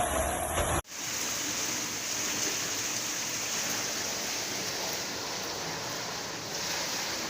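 Steady rushing noise of water, even and without rhythm, starting abruptly about a second in after a cut from a louder noisy passage.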